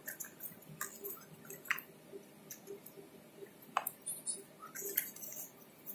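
Paper and cardboard packaging being handled: a paper wrapper and folded leaflets rustle and crinkle, and the cardboard box gives light clicks, in scattered short bursts.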